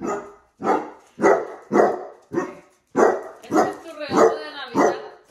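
Basset hound barking over and over at a heart-shaped foil balloon, about two deep barks a second, with one longer, drawn-out bark about four seconds in.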